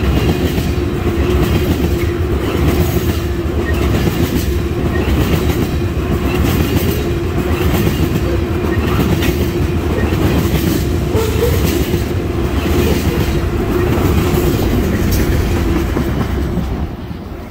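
Freight tank cars of an oil train rolling past close by: a steady rumble with the wheels clacking over rail joints and a held tone above it. The sound drops away near the end as the last car passes.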